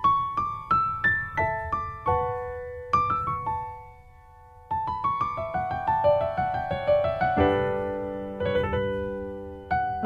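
Solo piano music: single struck notes that die away, a pause about four seconds in, then a quick rising run of notes building into sustained chords.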